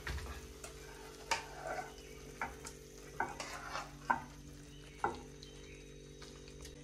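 Metal spatula scraping and knocking against the inside of a metal cooking pan as thick curry is scooped out into a steel bowl, in short irregular strokes about every half second to second, over a low steady hum.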